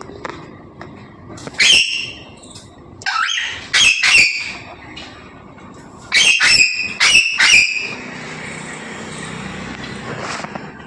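African grey parrot calling: a few short, high-pitched squawks and whistles in three quick groups. After that comes a steady rushing noise for the last few seconds.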